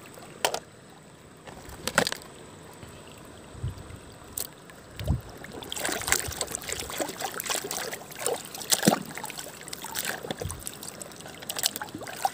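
Water splashing and trickling as a toy cement mixer truck is rinsed and handled, with scattered knocks. The splashing gets busier about six seconds in.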